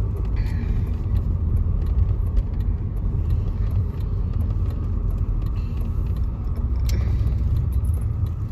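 Audi car heard from inside the cabin while it drives slowly: a steady low rumble of engine and road noise, with light scattered clicks.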